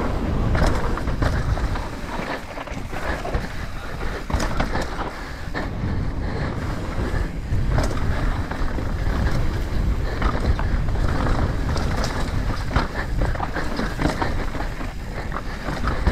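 Mountain bike (a 2021 Commencal Meta AM 29) descending dirt singletrack at speed: wind buffeting the camera microphone over the tyres' rumble on the dirt, with frequent short clicks and rattles from the bike over bumps.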